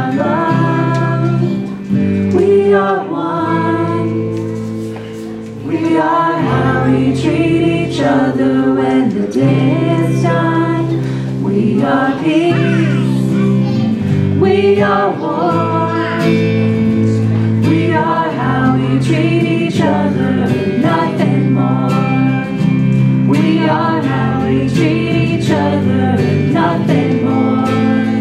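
A live song with electric guitars and a lead singer on a microphone, with a group of voices singing the chorus along.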